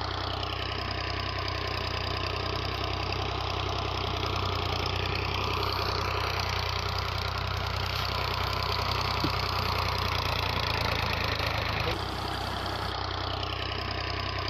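Small electric motors of a miniature model machine running steadily, with a low hum and a whine that dips slightly in pitch about a second in and again near the end.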